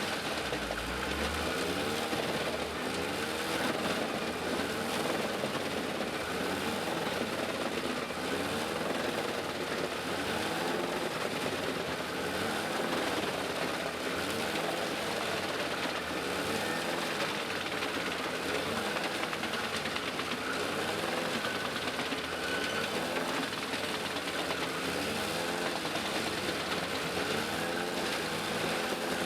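Tractor-driven Gandini Connecticut 50-100 TTS XL wood chipper and its Claas Xerion tractor running together, giving a steady mechanical din with a faint, regular rise and fall.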